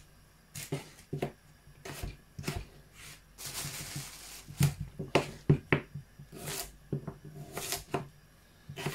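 Kitchen knife cutting raw red potatoes on a plastic chopping board: a string of irregular knocks as the blade goes through and hits the board. A plastic bag rustles briefly about four seconds in.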